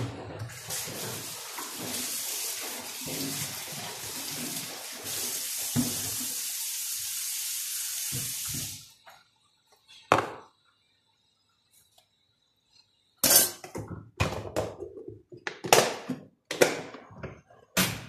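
Water tap running steadily into a sink for about nine seconds, then shut off. After a pause come several sharp knocks and clatters near the end.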